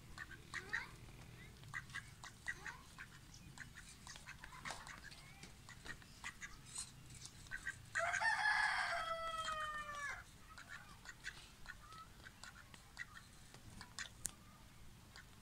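A rooster crows once, about eight seconds in: a single drawn-out call of about two seconds that drops in pitch at the end. Around it there are only faint scattered clicks and small chirps.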